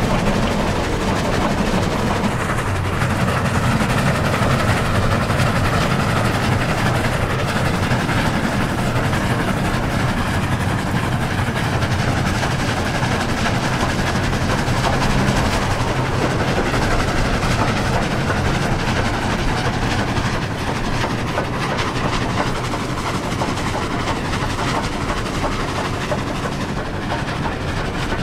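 Diesel locomotives running, a steady low engine drone under a dense mechanical rail noise; it eases slightly in level after about twenty seconds.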